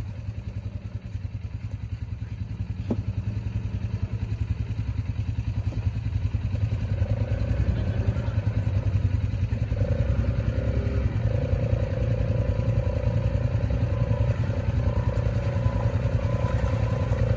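ATV engine working hard under load as the quad digs through a deep mud hole: a low pulsing drone that slowly builds, with a steady whine joining about seven seconds in.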